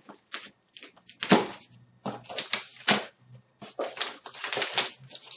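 Clear plastic stretch wrap crinkling and tearing as it is pulled off a cardboard box, in quick irregular crackles.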